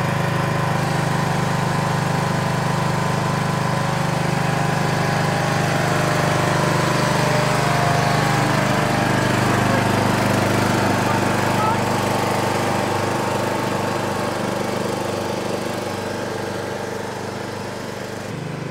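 Small petrol engine of a ride-on lawn mower running steadily just after starting, easing a little near the end.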